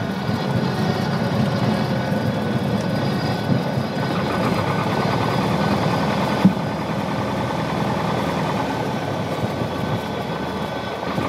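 Piper PA-28 light aircraft's piston engine and propeller running steadily at low power, heard from inside the cockpit as the plane rolls along a grass runway after touchdown. A single sharp knock comes about six and a half seconds in.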